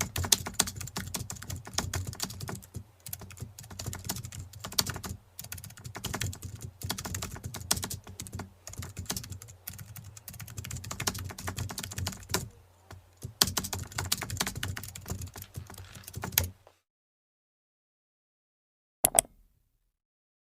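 Fast, irregular clicking and tapping that stops about three-quarters of the way through, followed by a single short click near the end.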